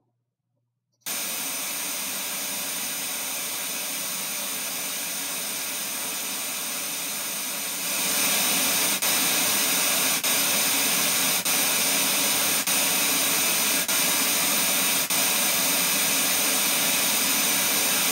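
Loudspeaker playing steady broadband test noise, a loud even hiss that switches on suddenly about a second in and is turned up about 8 seconds in. After that it has brief small dips roughly every second and a quarter.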